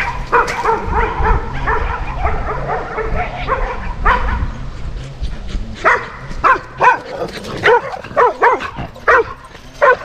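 Dog barking repeatedly, in a quick run of yips at first and then in separate sharp barks about twice a second from about six seconds in, over a low rumble in the first half.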